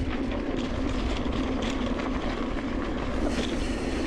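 Mountain bike riding fast down dirt singletrack: wind rushing over a chest-mounted camera and knobby tyres rolling, with a steady low hum and scattered clicks and rattles from the bike over the rough ground.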